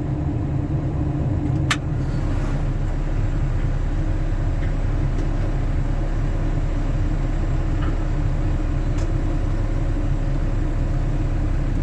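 Zoomlion excavator's diesel engine running steadily with a low rumble, with one sharp click a little under two seconds in.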